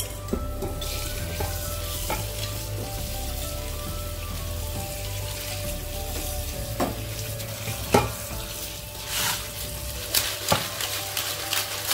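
Small field crabs, broken into pieces, being stirred and rubbed by hand in an aluminium pot under running tap water, to rinse off the mud. A steady hiss of water with the rattle of crab shells, and a few sharp clicks of shell against the pot, the loudest about eight seconds in.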